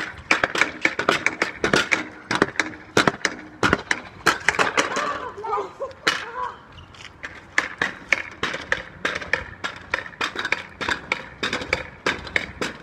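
Pogo sticks bouncing on hard ground: a fast, uneven run of sharp clacks, several a second, from two sticks landing out of step.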